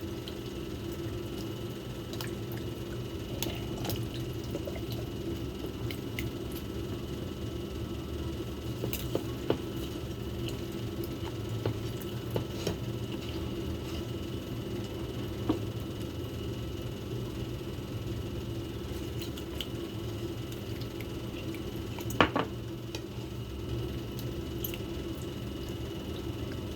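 Wet squishing of hands massaging marinade into a raw whole chicken, with scattered small clicks and one louder knock about 22 seconds in, over a steady low hum.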